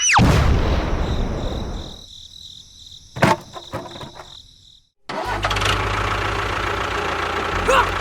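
Engine-like running sound that fades over the first two seconds, then a faint high whine and a sharp click. A brief dropout follows, and a steady low engine drone starts up just after it.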